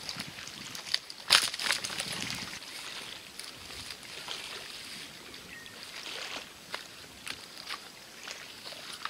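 Small lake waves lapping and sloshing against the shore, with scattered sharp clicks and knocks; the loudest knock comes about a second in.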